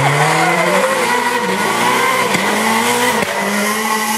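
Rally car engine revving hard through the gears, its pitch climbing, dropping back and climbing again, with two short cracks about a second apart.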